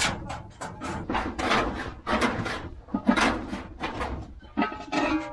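Wood cooking fire burning under a pot in a block fogón, with irregular sharp cracks and knocks several times a second.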